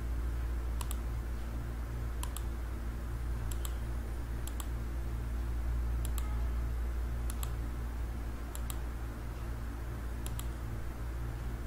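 Computer mouse clicking about once a second as edges are picked one by one, each click a quick pair of snaps. A steady low electrical hum runs underneath.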